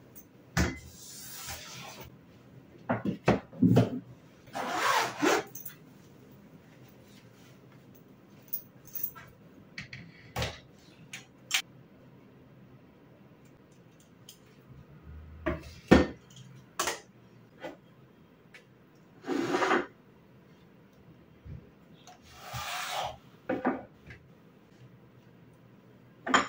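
Objects being handled at close range: scattered knocks and clicks mixed with several short scraping or rubbing swishes.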